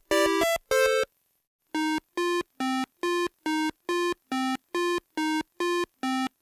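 Electronic chiptune-style music of short beeping synth notes: a few quick chords, a brief pause about a second in, then a steady run of evenly spaced notes about three a second.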